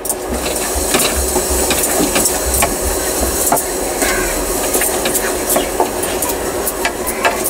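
Metal spatula scraping and tapping against a metal kadhai as a thick mixture of ground coconut, milk and sugar is stirred. Many short scrapes and clicks sound over a steady hiss and low rumble.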